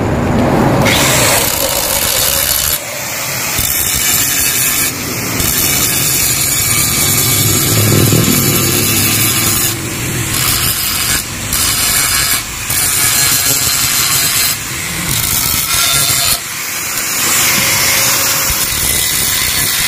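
A power tool cutting or grinding the steel of a motorcycle exhaust muffler, a loud sustained hiss broken by short pauses several times, as the stock muffler is being gutted.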